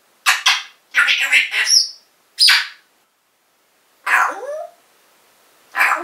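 African grey parrot calling in short bursts: squawks and speech-like chatter, five in all, the fourth ending in a rising whistled note.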